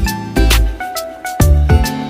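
Background music with a beat: deep bass notes and drum hits, about one a second, under sustained pitched tones.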